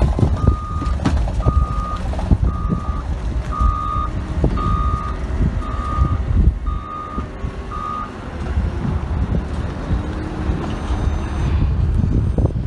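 A vehicle's reversing alarm beeps about once a second over low engine rumble, then stops about eight seconds in while the rumble and some knocks go on.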